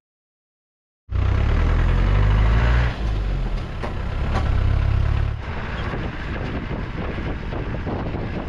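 Dead silence for about the first second, then a motor vehicle running with a loud, deep rumble and road noise, easing down a little about halfway through.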